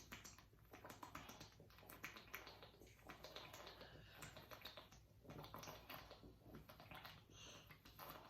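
Faint, irregular swallowing gulps and throat clicks as ginger ale is chugged from the bottle without stopping.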